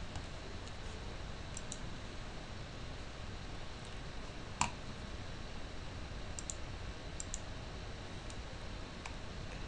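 Computer mouse clicking: several sharp clicks, mostly in quick pairs, with one louder click a little under halfway through, over a steady low background hiss.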